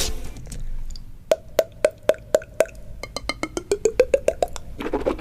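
Beatboxer's mouth clicks, sharp like wood-block knocks. First comes an even run of about four clicks a second on one pitch. Then comes a quicker run that climbs in pitch.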